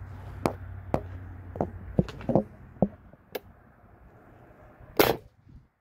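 A series of light clicks and knocks from handling the pellet rifle, then one loud, sharp crack about five seconds in: the 1200 fps pellet rifle firing a shot.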